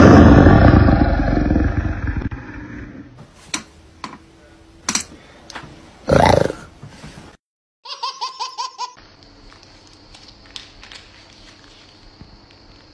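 A loud, rough vocal outburst that fades over about two seconds, then a few sharp clicks and brief vocal sounds. About eight seconds in comes a short burst of laughter, and after it only faint background sound.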